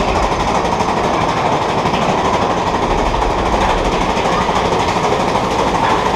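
Mine-train roller coaster running along its track, the cars giving a loud, steady rattle and rumble.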